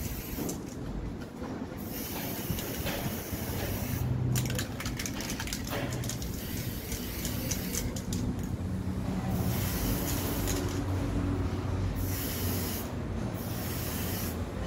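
Aerosol spray can hissing in a series of spray bursts, each a second or two long with short pauses between, as a coat is sprayed onto a plastic part.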